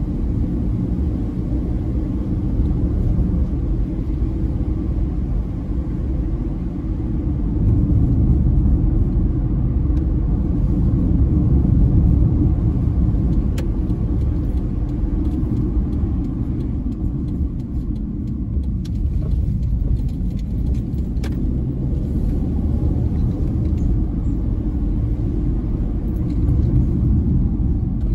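Steady low rumble of a car driving, engine and tyre road noise heard from inside the cabin, swelling a little about a third of the way in.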